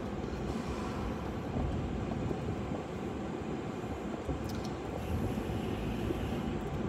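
Steady road and engine noise heard inside the cabin of a car being driven.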